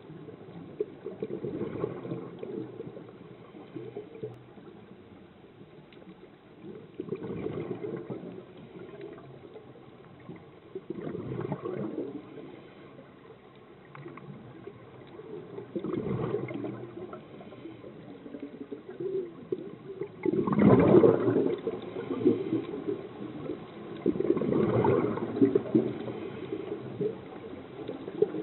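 Scuba regulator exhaust bubbles gurgling underwater in bursts, one for each exhaled breath, recurring about every four to five seconds, with a low steady underwater hiss between them. The loudest burst comes about two-thirds of the way through.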